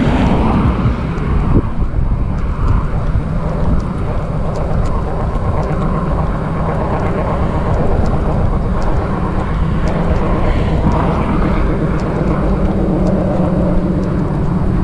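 Steady low rumble of road traffic and wind on the microphone, with faint light clicks scattered throughout.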